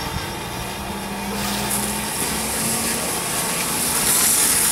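Fire hose stream from a 7/8-inch smooth-bore nozzle flowing into a post-flashover room fire: a hiss of spraying water that starts about a second and a half in and grows louder, over a steady low engine hum.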